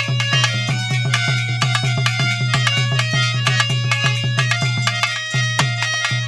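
Instrumental interlude of a folk bhajan: a dholak played with rapid, even strokes under held harmonium notes.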